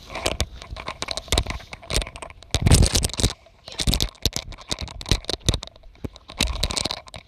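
Footsteps crunching and scuffing on a dry, stony dirt trail at an uneven walking pace, loudest about three seconds in.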